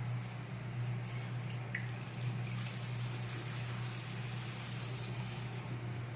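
Water running in a restroom fixture. It swells for a few seconds in the middle, over a steady low hum.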